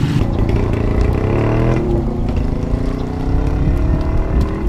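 Motorcycle engine accelerating, its pitch rising over the first couple of seconds, then running at a steady pitch.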